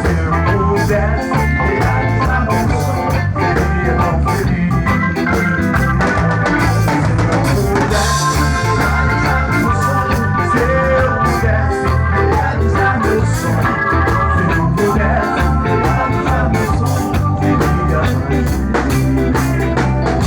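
Live band playing an up-tempo song with a steady drum beat and bass, an instrumental passage without clear vocals.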